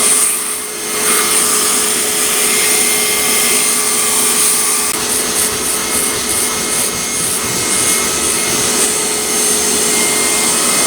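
Hoover carpet steam cleaner's motor running steadily with a whine and rushing suction, as the upholstery brush tool is scrubbed over a carpet stain.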